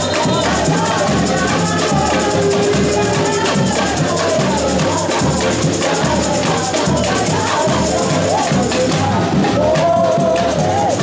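A samba bateria playing live: surdo bass drums keeping a steady beat under a dense layer of metal shakers and other hand percussion, with a voice singing a melody over the drums.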